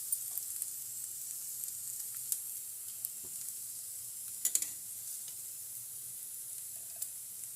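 Finely cut potatoes frying in oil in a kadhai: a steady sizzle, with a few sharp clicks, most clearly about four and a half seconds in.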